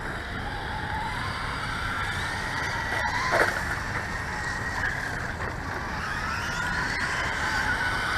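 Electric motor of a radio-controlled car whining, its pitch climbing and falling with the throttle, with a short louder burst about three seconds in, over a steady hiss.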